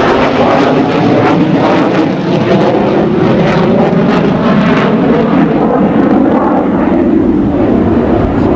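Loud, steady jet engine noise from the F-14B Tomcat's twin General Electric F110 turbofans, with a slight crackle.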